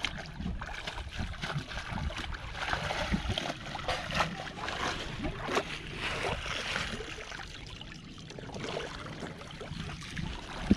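Shallow water splashing and sloshing irregularly as a person wades at the water's edge and dips a landing net and a cloth fish bag in and out.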